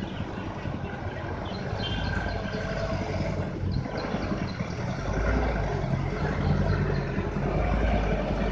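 Engine of a small cab-over truck loaded with oil-palm fruit bunches, pulling slowly over a muddy dirt road. It grows louder as the truck comes closer, most clearly about five seconds in.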